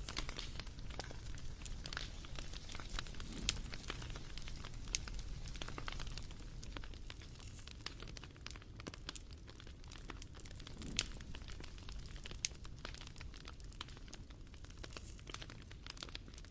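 Wood fire crackling: irregular sharp pops and snaps over a low, steady rumble of burning.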